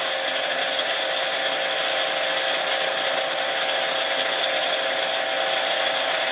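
Power drill spinning a shop-made lap charged with Clover lapping compound against a rifle upper receiver, running steadily: an even motor whine over a gritty hiss.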